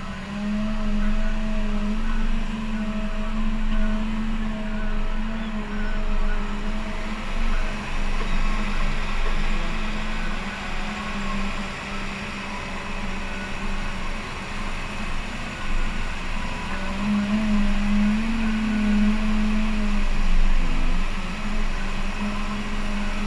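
Cat 930K wheel loader's diesel engine running under load with a steady hum, its pitch rising and dipping briefly near the end as the bucket works into the sand pile.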